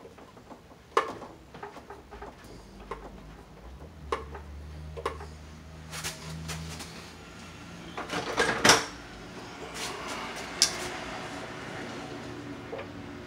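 Hands handling small tools and wiring parts on the sheet-metal top of an electric water heater: scattered clicks and light metallic clatter, with a louder clatter a little past the middle.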